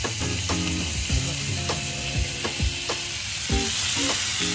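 Squid sizzling on a hot pan greased with margarine, with a regular run of sharp clicks at about two a second.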